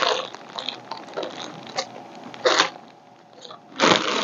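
Buttons clicking and rattling in a series of short, irregular bursts as a hand rummages through a box of them. The loudest rattles come about two and a half seconds in and near the end.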